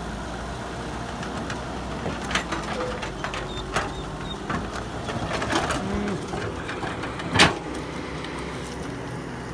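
Heavy machine's engine running steadily, with scattered sharp knocks and one loud bang about seven seconds in.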